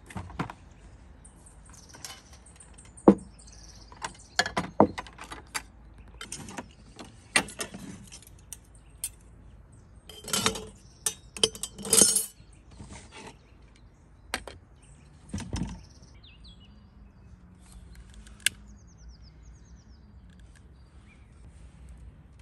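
Irregular clinks and knocks of objects being handled, with a few faint bird chirps in the background.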